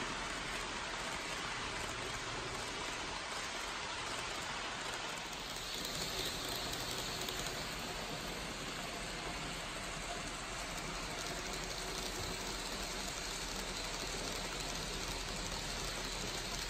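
N gauge model trains running on layout track: a steady rushing rattle of small metal wheels on the rails, with a higher whine joining in about five seconds in as a train passes close.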